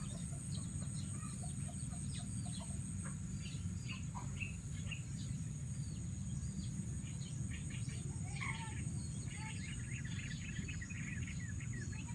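Birds calling with many short chirps and a few falling calls, busiest in the second half, over a steady high-pitched insect drone and a low steady rumble.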